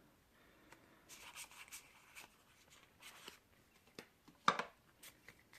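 Faint handling of Pokémon trading cards: soft sliding and rubbing swishes as cards are shuffled through by hand, with a few light clicks and one louder rustle about four and a half seconds in.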